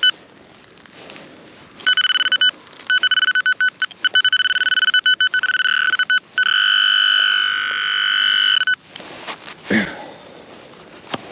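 Metal detecting pinpointer sounding on a buried target: a high electronic beep that pulses rapidly in stretches, then holds as one continuous tone for a couple of seconds and cuts off suddenly. Faint handling noise follows.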